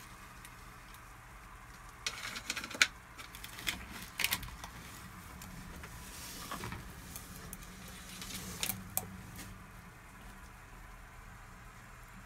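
Savannah monitor crunching a quail egg in its jaws: a run of sharp cracks and clicks of breaking shell starting about two seconds in, a few more around four seconds and again briefly near nine seconds, over a faint steady hum.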